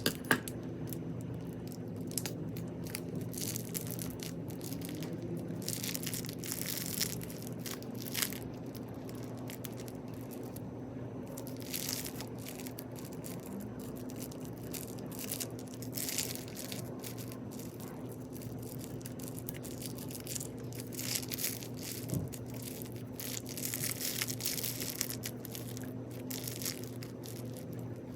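Crunchy slime packed with beads being squeezed and worked, a continuous crackling crunch of many small clicks that thickens into louder bursts every few seconds.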